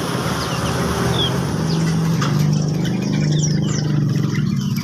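Many small caged songbirds chirping in short, high calls over a steady low motor hum.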